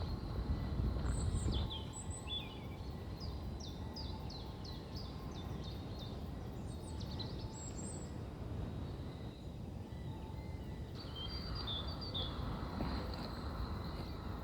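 Woodland ambience: small birds chirping, with a quick run of short falling notes about four to seven seconds in, over a steady low rumble.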